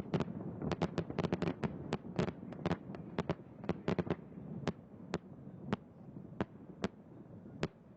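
A fireworks display: rapid crackling bangs over a low rumble, dense at first, then thinning to single cracks about a second apart toward the end.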